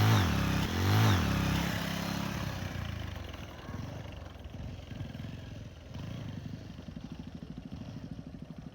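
Motorcycle engine revved hard twice in the first second or so, the pitch climbing and dropping each time. It then runs lower and rougher, settling into an even throbbing beat near the end.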